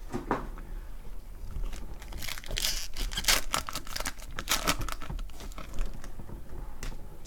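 Trading-card pack wrappers crinkling and tearing as the discarded wrappers are cleared away and the next pack is opened, in a dense irregular run of crackles, busiest in the middle.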